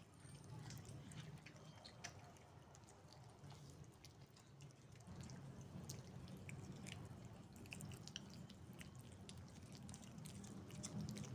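Faint, scattered wet clicks of a cat chewing raw meat scraps, over a low steady hum.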